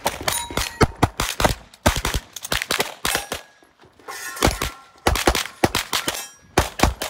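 Rapid pistol fire during a practical shooting stage: quick strings of shots, several a second, broken by short pauses about four seconds in and again near the end, with a brief ringing tone after some shots.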